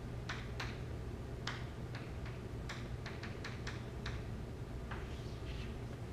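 Chalk tapping and scraping on a blackboard as a diagram is drawn: about a dozen sharp ticks at uneven spacing, over a steady low room hum.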